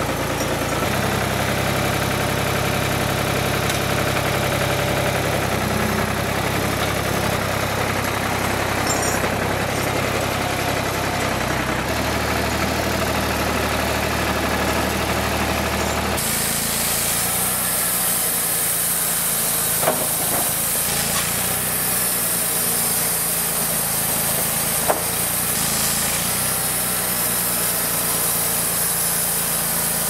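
Small farm tractor's engine running steadily while it works a front loader, its speed shifting a few times, with a couple of short knocks partway through.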